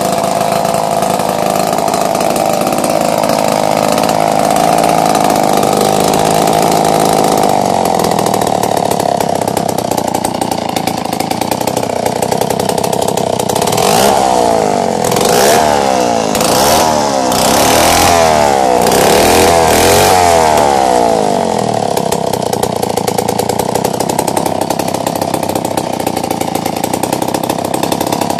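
McCulloch 47A two-stroke chainsaw engine running with its bar and chain off, at a steady speed. In the middle it is revved up and down about six times over some seven seconds, then settles back to a steady idle.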